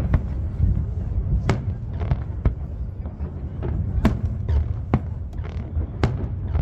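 Fireworks show: about a dozen sharp booms and cracks at irregular intervals over a continuous low rumble, through a cell phone's microphone.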